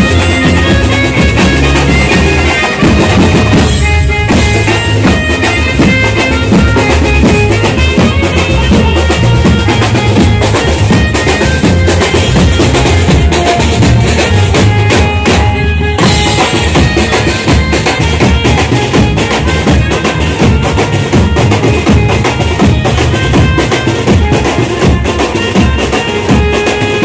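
Live street band playing loud, fast festival music: a dense beat from snare drums, hand-struck drums and a cymbal under a held melody line. The music dips briefly around four seconds in and again near sixteen seconds, then carries straight on.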